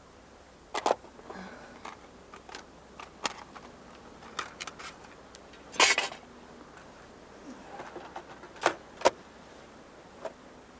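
Scattered small clicks and knocks of objects being handled, with a longer, louder rustling scrape about six seconds in and two sharp knocks a little before the end.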